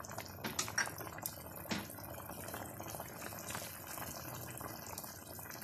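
Vegetable soup simmering in a pot, a soft steady bubbling with a few small pops in the first two seconds.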